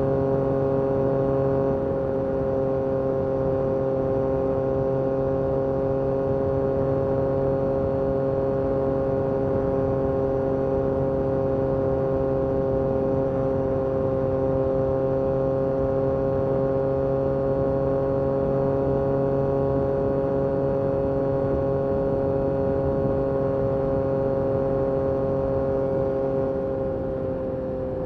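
Yamaha MT-09 SP's 890 cc inline-three engine through an Akrapovic carbon exhaust, running at a steady engine speed while cruising, easing off slightly near the end.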